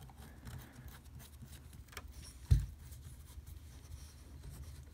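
Quiet scratching and small ticks of a hex driver turning a small bolt into a model helicopter's metal frame, with one dull bump about two and a half seconds in.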